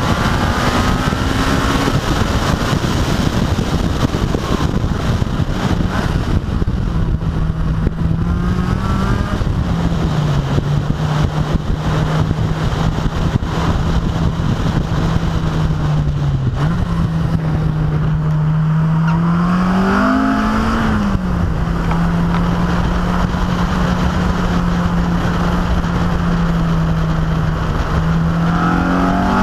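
Car engine pulling at fairly steady revs, with wind rushing over an exterior-mounted camera's microphone. The engine note dips briefly about ten seconds in and again a little after sixteen seconds. It rises and falls around twenty seconds in, then settles again.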